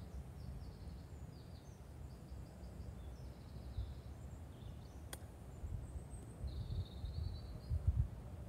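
Birds chirping in short repeated phrases, with a single crisp click about five seconds in as a gap wedge strikes a golf ball on a chip shot. A low wind rumble runs underneath and gusts near the end.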